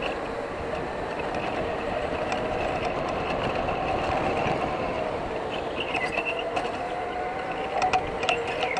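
Electric go-kart running at speed, heard from on board: a steady motor whine over tyre and chassis noise. The whine's pitch dips briefly about six seconds in and again near the end, and a few sharp clicks come near the end.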